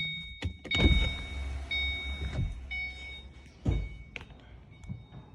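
A 2006 Saleen's electronic warning chime beeping repeatedly, about one long beep a second, with several dull thunks among the beeps.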